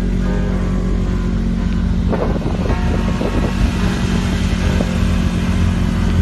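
Snowmobile engine running at a steady speed, with a few short knocks and rattles a couple of seconds in.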